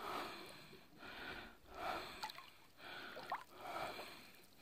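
A man breathing, faint and rhythmic, about one breath a second.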